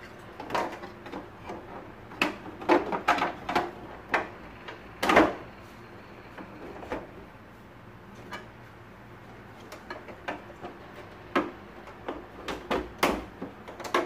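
Plastic housing parts of a Siemens X6.0 vacuum cleaner clicking and knocking as the upper casing is pressed and seated onto the body. The knocks come irregularly: a cluster two to four seconds in, the loudest about five seconds in, a quiet stretch, then several more near the end.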